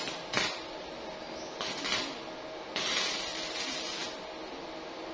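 Arc of a small 900-watt stick welder hissing and crackling as the electrode burns, in three spells: a brief one near the start, another about two seconds in and the longest, over a second, about three seconds in.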